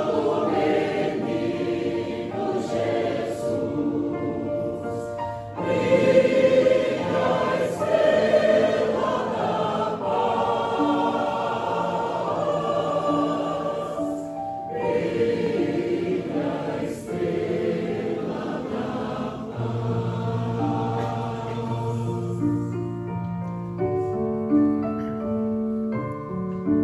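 Church choir singing traditional Christmas carols from a medley. Near the end the voices stop and a keyboard plays on alone in separate notes.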